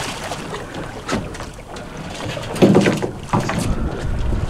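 Water splashing against the side of a fishing boat as a hooked shark thrashes at the surface, with wind on the microphone. A louder splash comes about two and a half seconds in.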